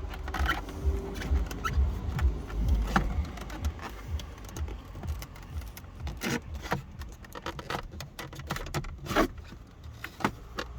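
Irregular clicks, knocks and scrapes of a BMW 523 instrument cluster being worked into its dashboard opening by hand, with a low rumble underneath.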